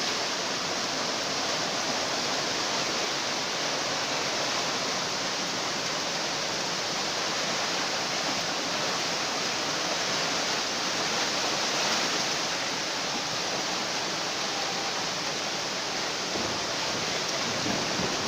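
Swollen river in flash flood, its floodwater rushing past in a steady, unbroken torrent.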